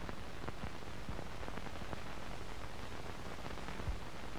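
Steady hiss with irregular faint crackles and pops, the surface noise of an old film soundtrack, with one louder low pop near the end.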